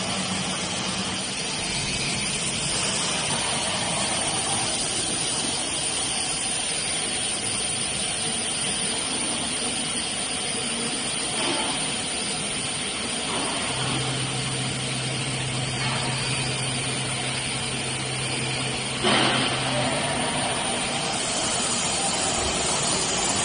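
Automatic tool changer CNC router running its auto tool-length sensing cycle: steady machine noise, a steady low hum from about 14 to 20 seconds in, and a sudden burst of noise with a short hiss about 19 seconds in.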